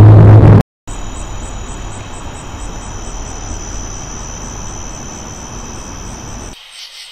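A very loud swell of film score cuts off sharply just over half a second in. After a moment of silence comes a steady distant rumble like an aircraft engine, with a thin high steady whine and faint regular pulsing above it. The rumble drops away near the end, leaving only the quieter high pulsing.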